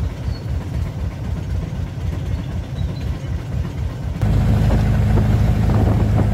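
Low engine and road rumble of a moving passenger vehicle, heard from inside its open cabin. It gets louder and steadier about four seconds in.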